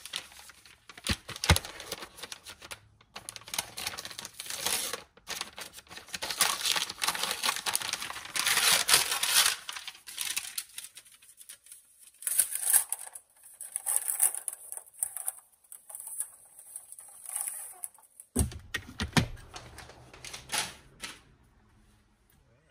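Unpacking a socket set: packaging rustling and crinkling, with many quick clicks and taps of steel sockets and their rails being handled.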